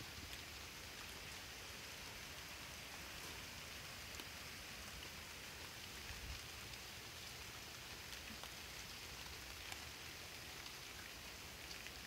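Faint, steady hiss of outdoor night ambience with scattered small ticks; no deer call is heard.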